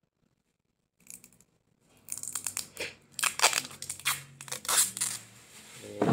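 Clear packing tape being pulled off its roll in a series of loud ripping peels, starting about a second in.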